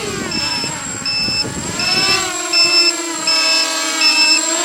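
Small quadcopter's Emax MT1806 2300KV brushless motors on 4S spinning 5045 bullnose props, a buzzing whine whose pitch rises and falls with throttle, then settles lower and steadier for the second half. A short electronic beep repeats about every three-quarters of a second over it.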